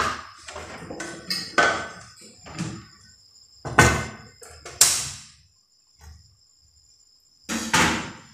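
Kitchen clatter: about five sharp knocks and clunks as a knife, cutting board and bowls are handled and set down on a stone counter. A faint, steady high-pitched tone runs underneath.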